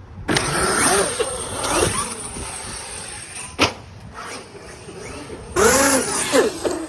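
Traxxas XRT large RC monster truck driving hard, its Hobbywing Max6 brushless motor whining up and down in pitch with throttle over a running drivetrain and tyre noise. A single sharp knock about three and a half seconds in, and a louder burst of revving near the end.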